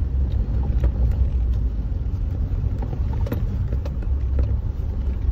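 Stock Suzuki Jimny driving on a rough dirt track, heard from inside the cabin: a steady low rumble of engine and tyres, with a few light knocks.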